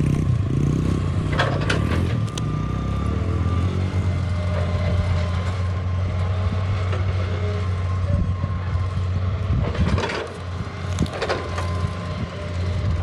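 Excavator diesel engine running steadily, with a few sharp cracks and knocks of rock, about one and a half and two seconds in and again around ten and eleven seconds.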